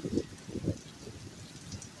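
Thunderstorm wind buffeting the microphone in irregular low thumps and gusts, with faint rain pattering.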